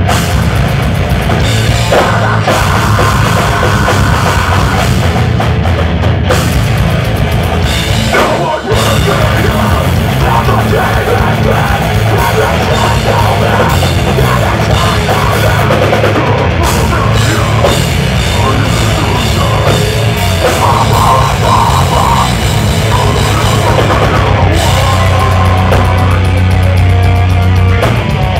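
A deathcore band playing live: distorted guitars, bass and fast, dense drumming, with screamed vocals. The band stops for an instant about eight seconds in, then comes straight back in.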